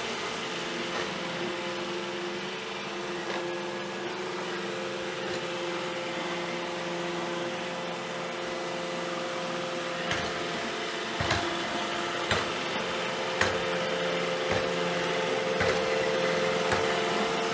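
A steady machine hum, such as a small motor or household appliance running. A few sharp clicks or knocks come in the second half.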